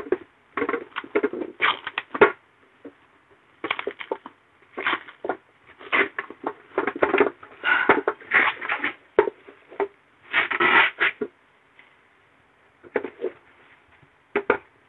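Protective plastic wrapping crinkling and rustling as it is pulled off a water purifier's clear plastic tank, in irregular bursts with short pauses between them.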